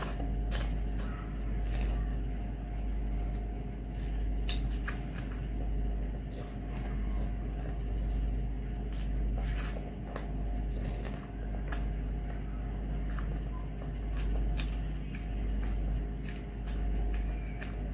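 Close-up eating sounds: chewing with scattered wet mouth clicks, and fingers squishing and mixing rice on a metal plate, over a steady low hum.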